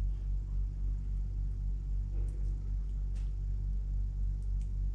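A steady low hum, with a few faint soft ticks in the middle.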